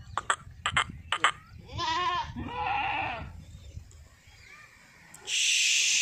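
Young Jamunapari billy goat bleating twice about two seconds in: first a quavering, wavering bleat, then a shorter, rougher one. A few sharp clicks come before it, and a loud burst of hissing noise comes near the end.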